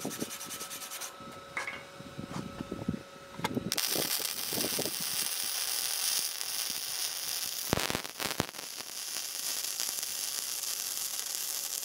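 Wire-feed welding arc running a steady bead on a steel plate and square tube, starting about four seconds in, with a few sharp pops about eight seconds in.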